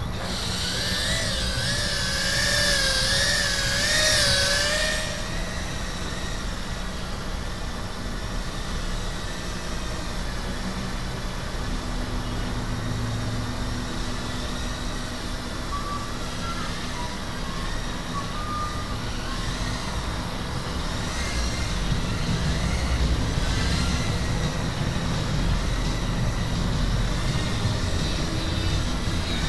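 A 2S 65mm tiny whoop FPV drone's motors and propellers whining. For the first five seconds the pitch wavers up and down with the throttle, then it settles into a duller, steadier buzz with a low rumble.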